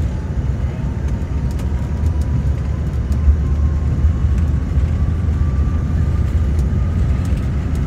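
Cabin noise of a CRJ-900 regional jet taxiing: a steady low rumble from its rear-mounted General Electric CF34 turbofans and the rolling airframe, with a faint engine whine rising slowly in pitch.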